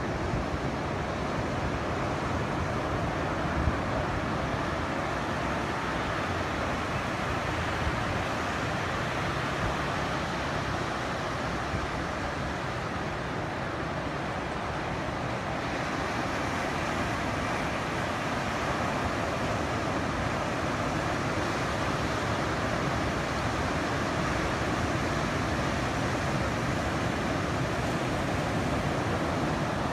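Ocean surf from a typhoon swell breaking in a steady, continuous wash, with wind rumbling on the microphone.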